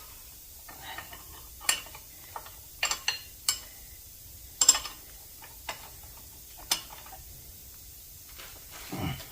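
Irregular sharp knocks and clinks from metal parts being handled, about eight in all with the loudest a little under five seconds in, and a short scrape near the end.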